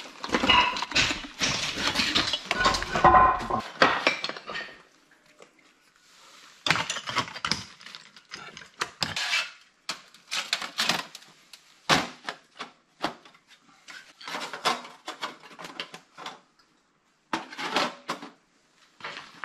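Metal clattering and clinking as a portable steel fire pit and its wire grate are handled and set down on slate. The clatter is dense for the first few seconds, then comes in short separate bursts with pauses.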